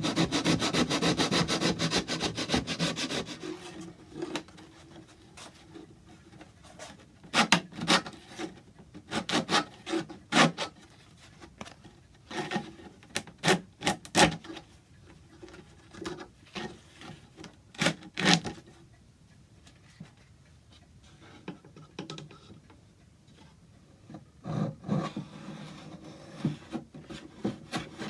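Hand tool strokes on wood: a fast run of rubbing strokes for about three seconds, then scattered single strokes with pauses between, and another run of strokes near the end.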